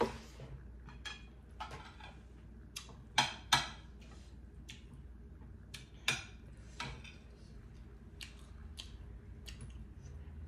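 Close-up eating sounds: chewing and wet mouth smacks from a meal of rice and curry eaten by hand, with a scatter of short sharp clicks and taps. The loudest are two sharp smacks close together about three seconds in and another about six seconds in.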